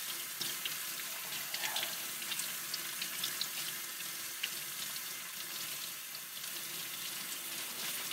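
Tap water running from a faucet into a utility sink as a de-rusted steel chisel is rinsed under the stream: a steady splashing hiss.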